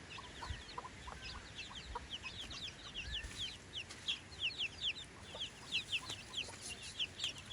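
Chickens peeping: a steady stream of many short, high, falling peeps, typical of young chicks, getting louder about halfway through, with a few faint lower calls among them.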